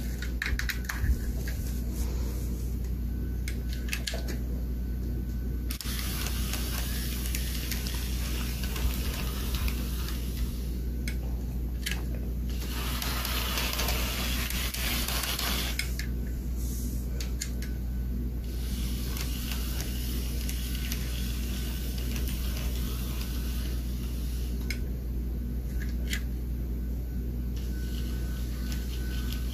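OO gauge model tank locomotive running along the track with a goods van: a steady electric motor hum with a rougher wheel-on-rail rattle that comes and goes, loudest about halfway through.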